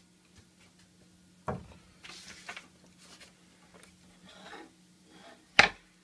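A knock on the wooden workbench about one and a half seconds in, then a short hiss from an aerosol spray can, some rustling, and a sharp knock, the loudest sound, near the end. A faint steady hum lies underneath.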